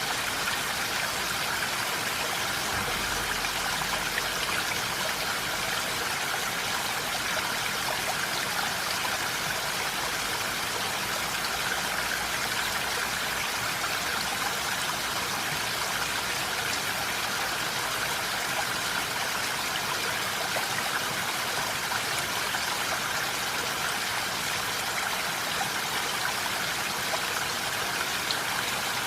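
Steady rain falling, an even hiss of water that keeps the same level throughout.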